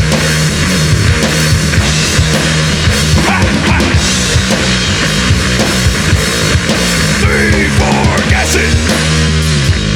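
Rock band playing an instrumental passage of a heavy, driving song: drum kit hitting steadily under a low, sustained bass riff. Sliding notes rise and fall about seven seconds in.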